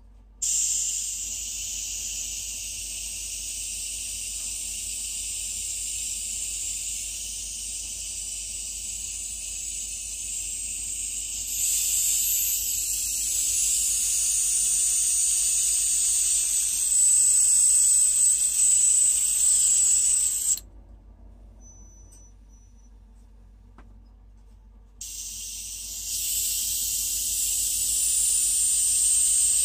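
Airbrush hissing steadily as it blows air across wet alcohol ink to push the petal outward. The hiss starts about half a second in, grows louder a little before the middle, stops for about four seconds past the middle, then starts again.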